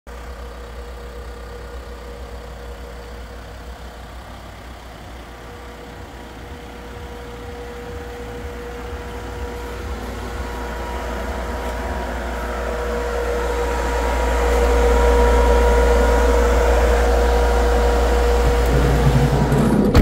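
VW Transporter T6.1 2.0 TDI diesel van idling with its refrigeration unit running. There is a steady low hum and a steady whine, and a whirring that grows louder over the second half.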